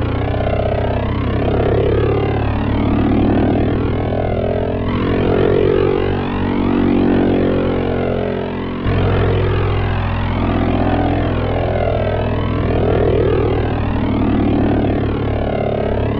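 Synthesizer drone from a software modular synth patch, run through a rotary-speaker effect and hall reverb: a steady, raspy low chord under slowly swirling, sweeping overtones. The low notes shift about nine seconds in.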